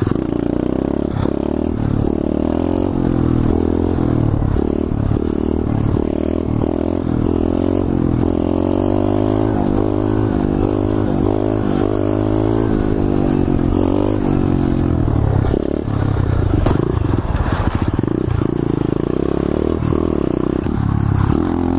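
2015 SSR 125cc pit bike's single-cylinder four-stroke engine running hard under the rider, heard from his helmet. Its note rises and falls repeatedly with the throttle.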